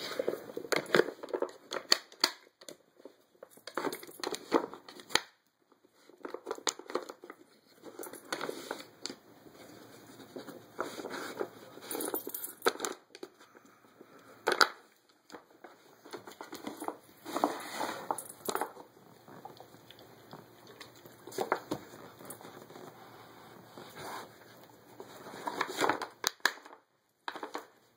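A dog nosing and pawing at a wooden Dog Fighter treat puzzle: irregular knocks and rattles of the wooden pegs and corks, with paper towel stuffing crinkling and tearing, in bursts with short pauses.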